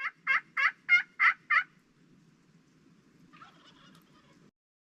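Turkey yelping: a run of six evenly spaced yelps, about three a second, each note breaking downward in pitch. A much fainter call follows about three and a half seconds in.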